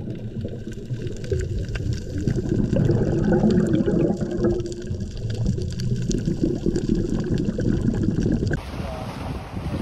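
Muffled underwater sound picked up by a submerged camera: water churning and gurgling around the housing, with scattered faint clicks. Near the end it cuts to open-air wind on the microphone.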